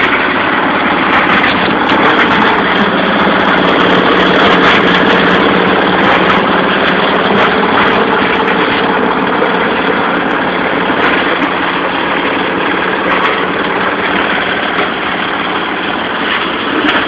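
Plastic crusher machine running steadily, with a constant motor hum under dense grinding noise and scattered sharp clicks.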